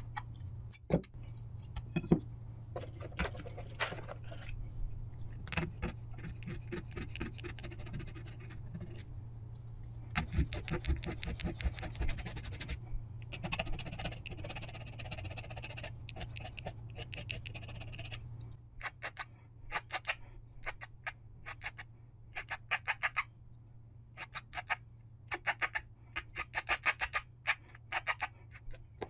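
Side cutters snipping through the small holding tabs on a CNC-milled aluminium bracket, with a couple of sharp snaps near the start, then a needle file rasping on the bracket's edge in quick runs of back-and-forth strokes to clean off the tab remnants.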